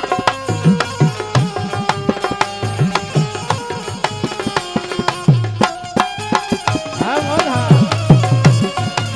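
Instrumental interlude of a Gujarati bhajan: tabla playing a steady rhythm, its bass drum strokes bending in pitch, under sustained melody notes. About seven seconds in, a short wavering pitched phrase rises above the accompaniment.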